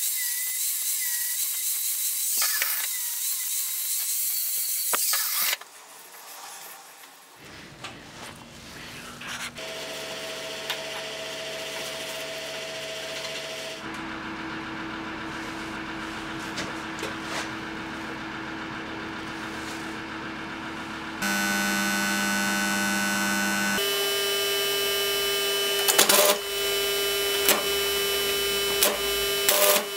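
Angle grinder with a cutting disc cutting into steel clamped in a vise for about the first five seconds, then it stops. After that, a steady hum whose pitch shifts a few times, and near the end sharp crackles as a welding electrode is struck against the part to start a stick-welding arc.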